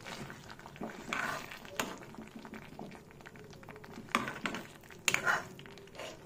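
Butter chicken gravy simmering in a pan while a spoon stirs it. There are a few short scrapes and clicks of the spoon against the pan, about a second in and again around four to five seconds in.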